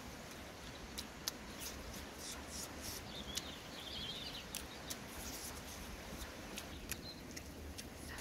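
Person eating cooked catfish by hand: soft chewing with scattered sharp mouth clicks and smacks.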